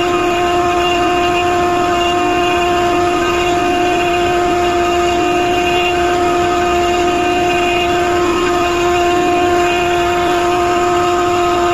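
Router spindle of a Onefinity CNC running steadily with a constant whine over a noisy bed, surfacing a rough-cut ash board.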